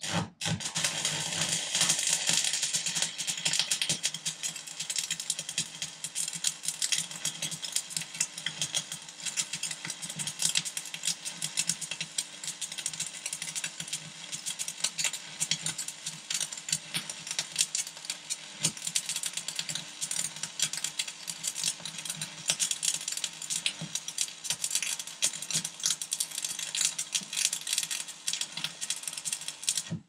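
MMA stick-welding arc crackling and sizzling steadily as weld is built up on a worn steel shaft, struck at the start and broken off suddenly near the end.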